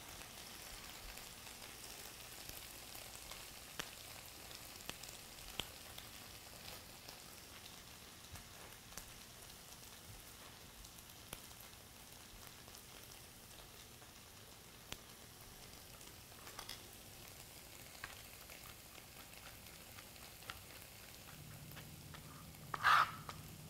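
Faint steady sizzle of a pan of hominy and beans cooking on the stove, with scattered light knife taps on a plastic cutting board as sage is chopped. One short louder sound near the end.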